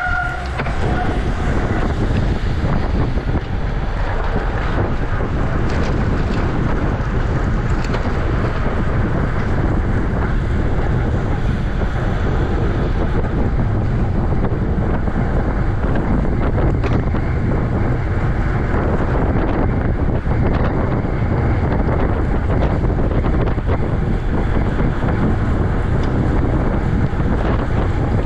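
Steady wind buffeting the microphone of a camera riding along on a racing bicycle at race speed: a loud low rumble with a hiss above it.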